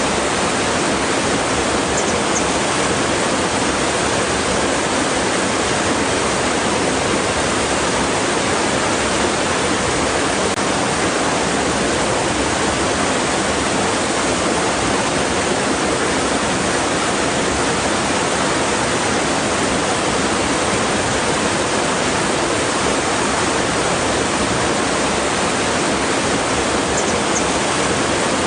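Water rushing against rocks, a steady, unbroken wash of noise.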